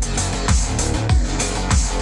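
Instrumental electronic music with guitar, a deep kick drum hitting about three times, played back through Wharfedale Denton 80th bookshelf speakers driven by a Denon AVR-X1600H receiver.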